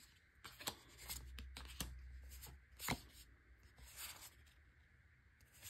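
Faint rustling and soft clicks of trading cards being flipped through and slid over one another by hand, with one sharper tap about three seconds in.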